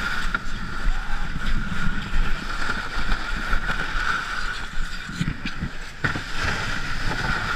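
Ice canoe's hull sliding and scraping steadily over snow and ice as the crew push it at a run, with scattered knocks and crampon footsteps crunching in the snow.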